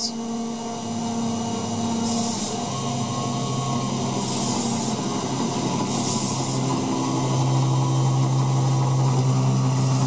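Mini mill spindle, driven by a DIY treadmill motor, running with an end mill cutting a slot in an aluminium plate: a steady motor hum with the rough noise of the cut. Several short hisses from a hand-held nozzle aimed at the cutter.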